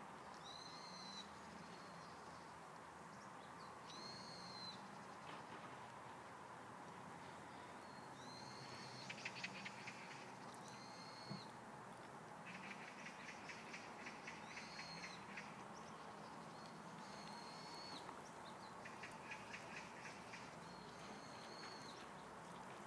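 Faint bird calls: a short arched whistle repeated about every three to four seconds, with bursts of rapid clicking trills between them, over a faint steady hum.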